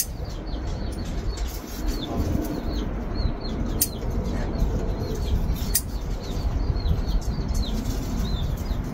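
Small birds chirping: short, high calls repeated many times over a steady low rumble, with two sharp clicks near the middle.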